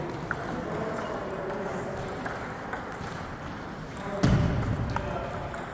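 Table tennis rally: the ball clicking off bats and the table at irregular intervals, with a heavier low thump about four seconds in.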